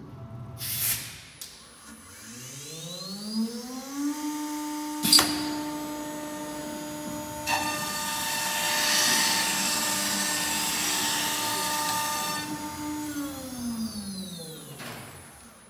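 CNC router spindle spinning up with a rising whine, then running at a steady pitch. While the bit routes a circular groove into a sheet panel, a rough rushing cutting noise sits over the whine. Near the end the spindle spins down with a falling whine. There is a short hiss about a second in and a sharp click about five seconds in.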